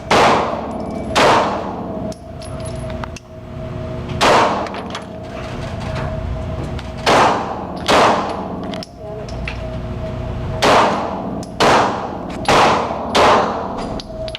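Glock 17 9mm pistol fired nine times in single shots, spaced unevenly from under a second to about three seconds apart. Each shot rings out with an echoing tail in the enclosed range, over a steady background hum.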